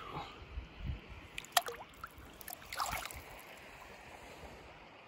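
Water splashing and sloshing as a brown trout is released by hand into a shallow river, with two sharper splashes about a second and a half and three seconds in. A steady, faint river flow follows.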